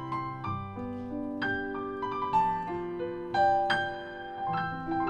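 Digital keyboard playing a slow solo piano passage: held low notes and chords under a melody of single notes, each struck and left ringing.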